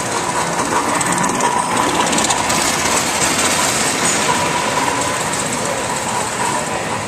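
Electric model train running past on layout track, its wheels clicking over the rails, with a thin steady whine, over steady hall noise.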